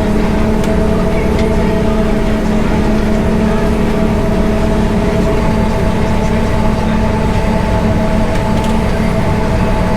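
Heavy diesel farm machinery running steadily at constant speed, a low drone with a steady whine over it.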